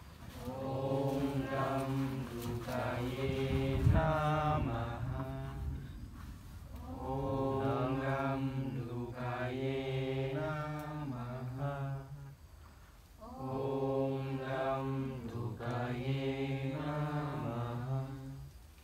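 Mantra chanting: a voice holds long, sustained sung phrases over a low steady note, pausing briefly about six and about twelve seconds in.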